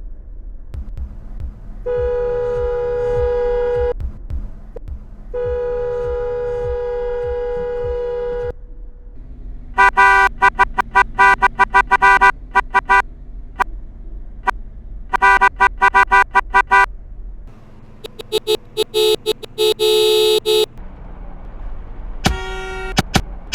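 Car horns sounding in turn: two long, steady honks of about two and three seconds, then several runs of rapid short honks from different horns. A low rumble runs underneath.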